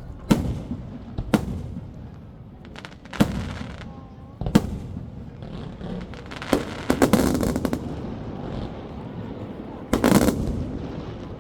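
Aerial fireworks bursting: sharp single bangs a second or two apart, a rapid cluster of crackling reports about halfway through, and another loud burst near the end.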